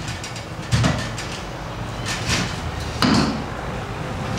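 Work noise with knocks: two louder thumps, about a second in and again about three seconds in, and lighter knocks over a steady background noise.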